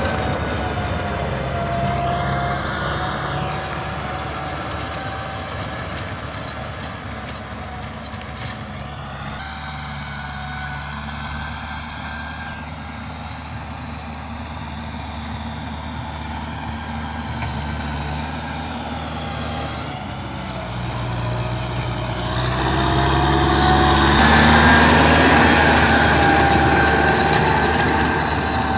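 Kubota M6040 SU tractor's diesel engine running steadily as it pulls a rotary tiller through dry soil. It is quieter in the middle and grows louder over the last several seconds as the tractor comes close, with the tiller's churning hiss added.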